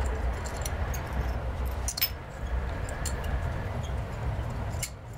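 Steady low rumble of room noise with a few light clicks and taps from hand-tool work at a wall, the sharpest about two seconds in and another just before the end.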